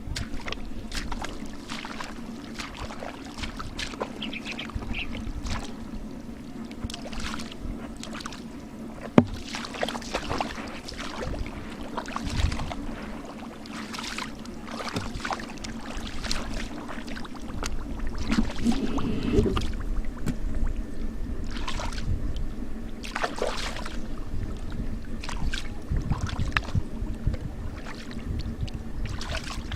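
Irregular splashing and sloshing of shallow water, as from people wading and groping for fish by hand, over a steady low hum.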